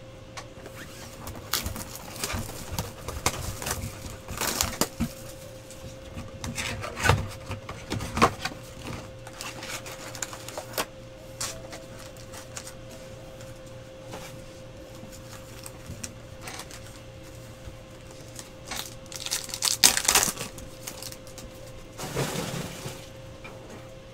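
Paper and foil rustling and crinkling as a foil-wrapped trading card pack is handled and opened and its cards are shuffled and flicked, in irregular bursts with a louder cluster near the end, over a faint steady hum.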